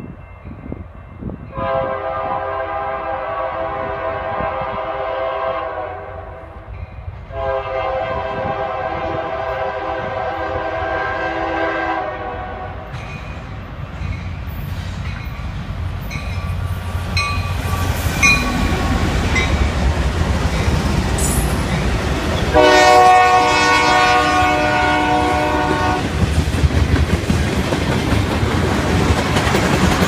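Freight locomotive's air horn sounding three long blasts as the train approaches, two close together and a third after a longer pause. Under them the train's rumble builds and becomes a steady clatter of freight cars rolling past near the end.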